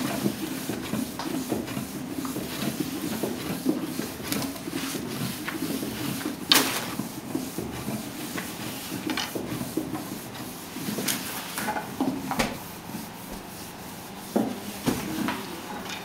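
Wooden rolling pin rubbing and knocking on a wooden board as lavash dough is rolled out, with scattered soft knocks and one sharp click about six and a half seconds in.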